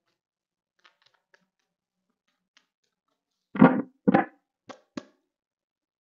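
A deck of tarot cards being handled: a few faint ticks, then two louder short thuds about half a second apart and two lighter taps as cards are laid down.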